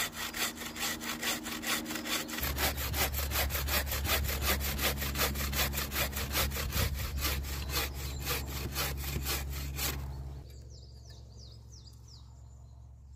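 Homemade bushcraft bucksaw, a bare saw blade held taut in a wooden frame by a cord windlass, cutting through a log with quick, even back-and-forth strokes. The sawing stops about ten seconds in as the section is cut off.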